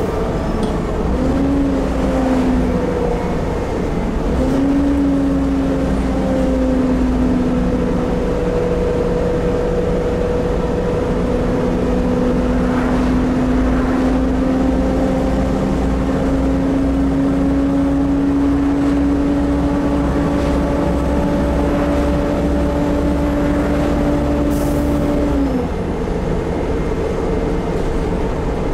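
Volvo B7TL double-decker bus's engine and drivetrain under way, heard from inside the upper deck: a steady low rumble with a whining tone that dips and recovers about a second in and again about four seconds in, climbs slowly as the bus gathers speed, then drops sharply about 25 seconds in.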